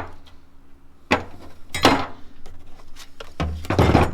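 Loose metal parts and hardware clinking and knocking as they are handled in a box: a few separate knocks, then a longer rattling clatter near the end.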